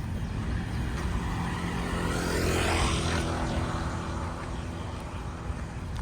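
A motor vehicle's engine running steadily, with a louder rush of another vehicle passing by about two and a half seconds in.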